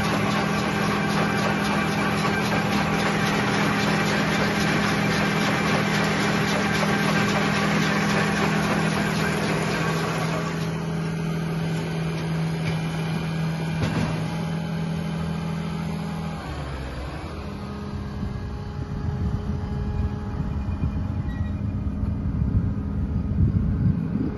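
Massey Ferguson 8120 tractor engine running with a Feraboli FF44 round baler driven off it. The dense machinery noise drops away about ten seconds in, leaving the steady engine hum. The engine's pitch dips and recovers about sixteen seconds in.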